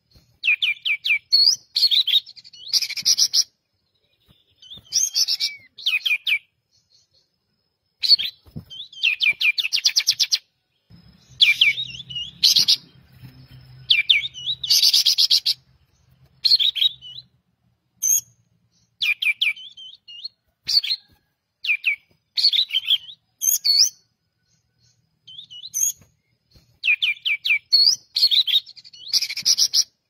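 Kapas tembak (a bulbul) singing loudly in a cage: bursts of rapid, chattering trills and whistled notes, repeated every second or two with short pauses between phrases.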